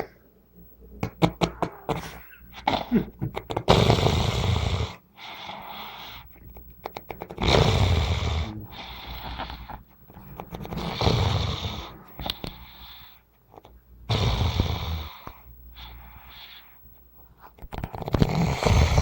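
Someone snoring heavily with a rumbling sound the uploader likens to a motorbike: five loud snores come about every three and a half seconds, with quieter breaths between them.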